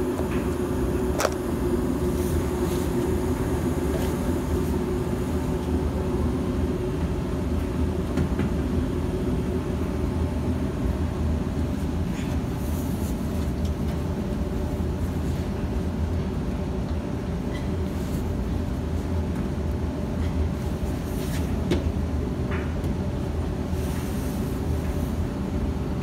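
Evcon (Coleman) 80% low-NOx gas furnace running: a steady low rumble with a faint steady hum under it. A few faint clicks come through it.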